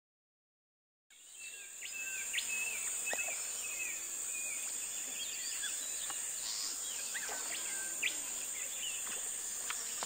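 Silence for about a second, then a steady high insect chorus fades in, with scattered bird chirps over it.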